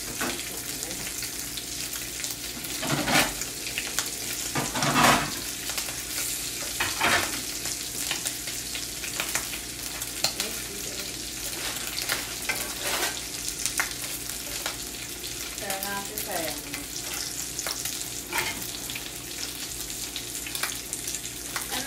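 Bacon sizzling in a frying pan, a steady hiss, while being turned with a spatula; a few louder scrapes stand out about three and five seconds in.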